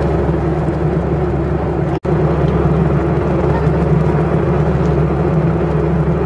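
Steady airliner cabin drone in flight: jet engine and airflow noise. It cuts out for a split second about two seconds in.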